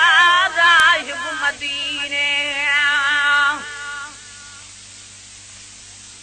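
A man singing a Sindhi devotional naat, a wavering ornamented line that settles into a long held note and ends about three and a half seconds in. After it only a faint steady hiss remains.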